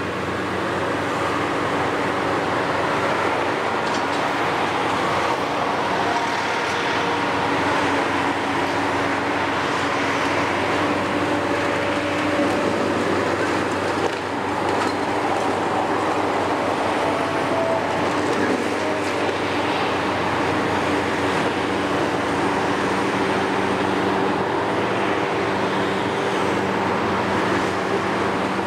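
Heavy demolition excavators' diesel engines running steadily under hydraulic load. The Hitachi 470 works its boom into the building and a second large excavator runs close by, making a continuous drone with a noisy rush over it and a few faint knocks.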